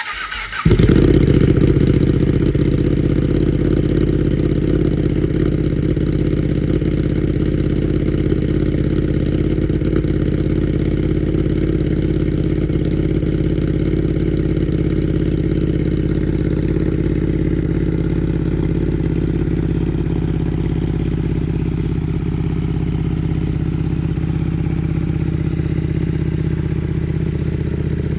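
Ducati Panigale V2's 955 cc V-twin with a full titanium Vandemon exhaust starting up: a brief crank, then it catches with a short flare in revs under a second in and settles into a steady idle.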